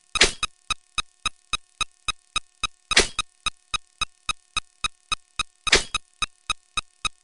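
Rapid electronic blips of a counting sound effect, about three or four a second, with a louder hissing burst roughly every three seconds.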